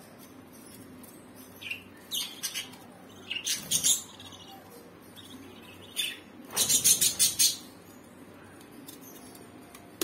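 Budgerigars chirping in short, sharp bursts, the loudest and longest run about two-thirds of the way through.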